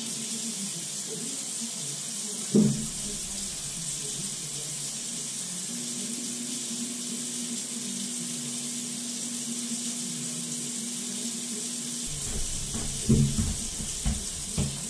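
Water rushing in a steady hiss as the water supply is turned back on, with a low hum for several seconds in the middle. A thump comes about two and a half seconds in and a few knocks come near the end.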